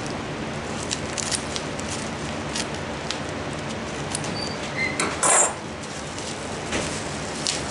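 Bubble wrap and packing material rustling, with scattered light clicks and taps as hatching eggs are unwrapped and handled; a louder crinkle comes about five seconds in.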